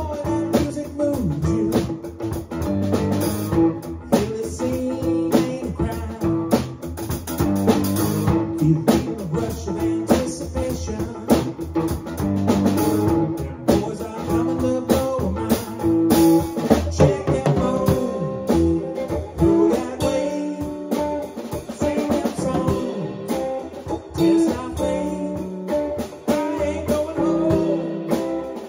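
A band rehearsing a song: a drum kit played with sticks, with cymbals and snare strokes, together with guitar.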